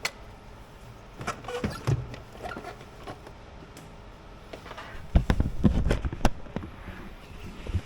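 Scattered clicks and knocks of things being handled and moved, with a cluster of louder thumps and clatter about five seconds in.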